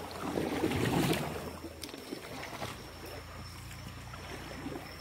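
Water noise from a paddled woven-bamboo coracle on a flowing river: paddle splashing and the river's rush, loudest in the first second or so, then a steadier wash.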